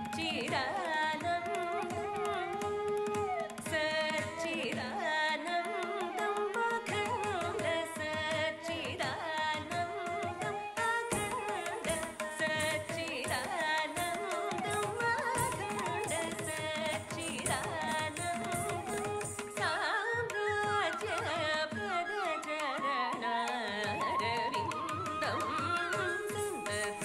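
Carnatic music for Bharatanatyam dance: a singer's voice moving in ornamented glides over steady hand-drum strokes, with accompanying instruments.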